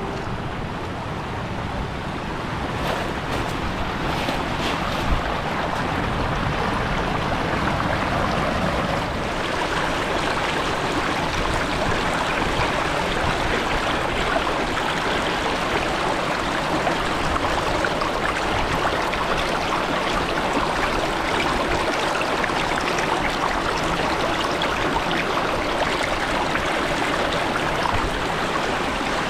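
Sea surf washing onto a beach, a steady rushing noise of waves.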